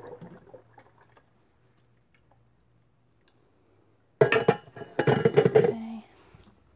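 A stainless steel stand-mixer bowl clanks and clatters against metal as it is handled and set down, a loud run of ringing knocks lasting about a second and a half that begins about four seconds in. Before it, the last of the goat-milk lye solution trickles into a stainless stockpot and fades out within the first second.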